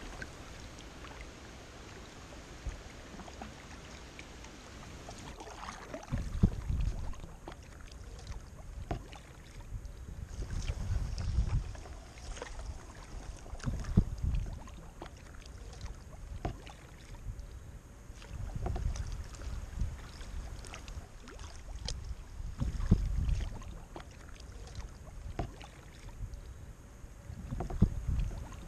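Kayak being paddled: paddle strokes and water splashing and dripping, with small clicks, and low gusts of wind rumbling on the microphone every few seconds.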